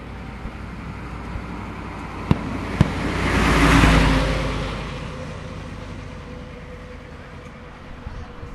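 Two sharp firework bangs about half a second apart, then a car passing close by, its noise swelling to a peak and fading away over several seconds.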